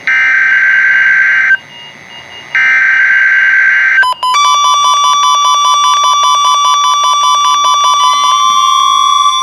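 Emergency Alert System SAME header: two bursts of screechy digital data tone, each about a second and a half long with a one-second gap. About four seconds in, an electronic alert tone takes over, beeping rapidly, and near the end its pitch begins to rise.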